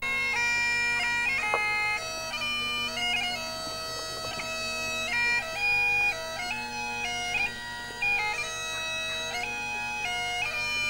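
Bagpipes playing a tune: a stepping chanter melody over the steady drones, with the level dropping slightly about two seconds in.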